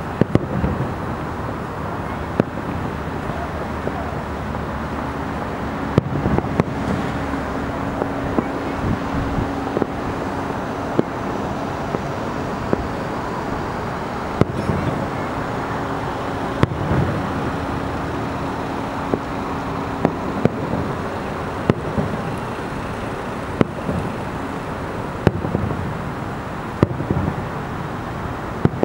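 Distant fireworks going off, sharp bangs every second or two, over a steady background of traffic noise. A steady hum comes in twice, for several seconds each time.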